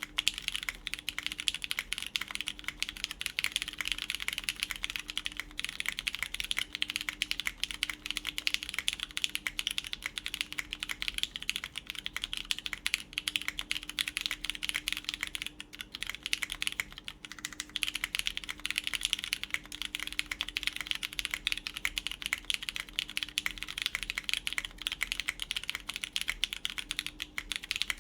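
Fast, continuous typing on a full-copper Machina Cloudnine R2 mechanical keyboard with lubed Cherry MX Brown tactile switches, PEI plate and GMK keycaps, keystrokes and spacebar clacks running together in a dense patter. The typing eases briefly about sixteen seconds in, then resumes at full pace.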